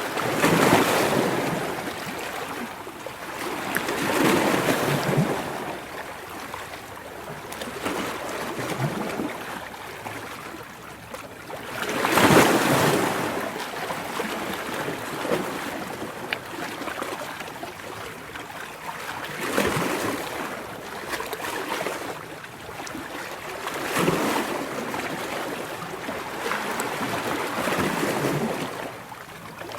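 Ocean waves surging and washing in, swelling and falling every few seconds, the largest about twelve seconds in.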